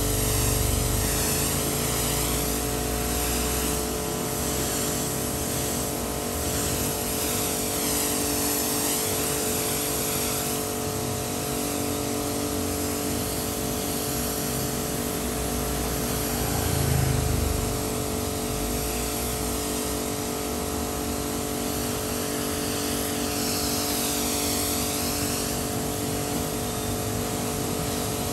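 Pressure washer running: a steady motor hum under the hiss of the water jet spraying over a motorcycle, the hiss shifting in tone as the jet moves across the bike.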